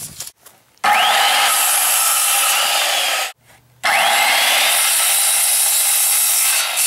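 Circular saw cutting through 2x2 lumber in two passes of about two and a half seconds each, with a short pause between. Each cut starts abruptly, the motor whine rising as the blade spins up, then runs steady through the wood.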